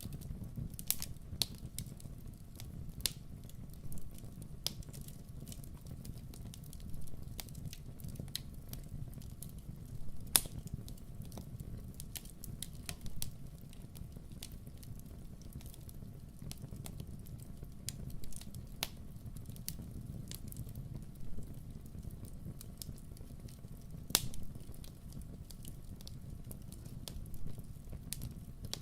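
Wood campfire crackling: irregular sharp pops and snaps over a low, steady rumble of burning, with two louder pops, one about ten seconds in and one near the end.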